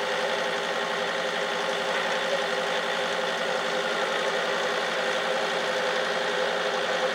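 A military utility vehicle's engine idling steadily, close by, with an even hum and no change in speed.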